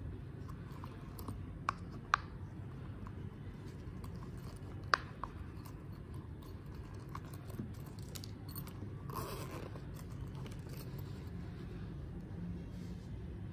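Handling of a silicone pop-it coin purse: a few sharp clicks and taps, with a brief rustle about nine seconds in, over a steady low background noise.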